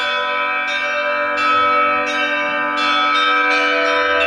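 Church bells ringing a festive peal, the 'raspberry' ring (malinovy zvon) of a great feast. A bell is struck about every 0.7 seconds, and each tone rings on and overlaps the next.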